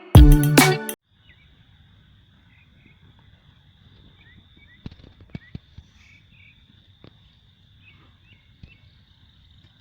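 A loud burst of intro music cuts off about a second in. After it comes faint rural ambience: a steady high insect drone with scattered short bird chirps and a few soft knocks.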